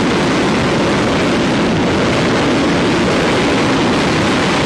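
GE J79 turbojet running at high power, heard as a steady, loud rush of exhaust noise with no change in level.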